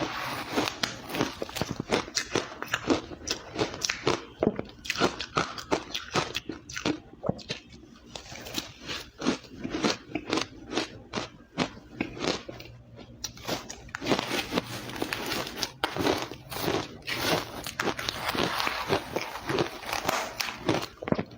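Close-miked biting and chewing of powdery, crushed ice: a rapid, irregular string of sharp crunches.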